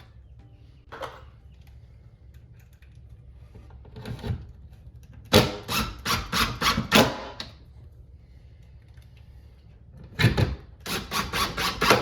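A power driver driving screws to fasten a cabinet part. It comes in two spells, each a rapid series of loud clacks about four a second, after a couple of lighter knocks.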